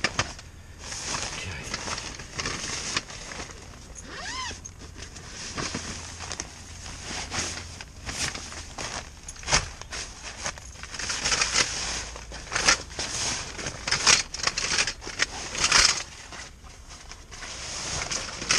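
Rustling and crinkling of a new camp bed's fabric and carry bag as it is unpacked and unfolded by hand, in a run of irregular scrapes and crackles, louder in the second half.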